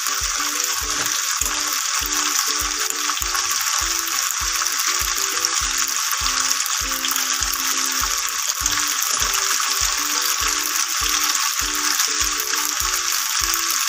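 Macaroni and vegetables frying in a pan on the stove, a steady sizzling hiss, under background music with a steady beat.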